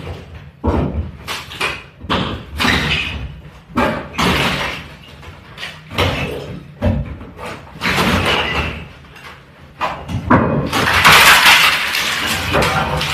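Old wooden parquet and floorboards being prised up and torn out by hand: repeated knocks, cracks and clatters of wood pieces. Near the end comes a longer, louder rasping noise as a strip of parquet blocks is pulled up off the floor.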